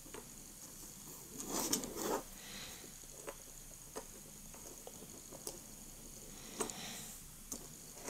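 Small plastic blocks of a Xiaomi fidget cube clicking and rubbing together as they are handled and fitted with pins. Scattered light clicks, with a louder scraping rustle about a second and a half in and again near the end.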